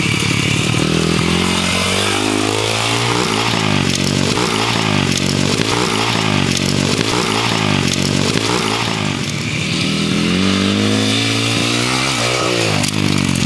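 Small dirt bike engine running loud and close, revved up and down in a rapid run of throttle surges through the middle, steadier before and after, as the bike is ridden over the dirt track and off a jump.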